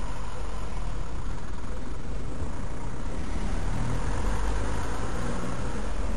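Ford Transit van's engine running as the van pulls round in a turn across the road, over a steady low rumble.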